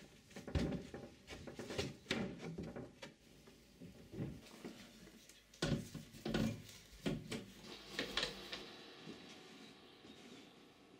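Irregular knocks and clatter of wooden things being handled in a small room, the sound of rummaging through drawers and furniture.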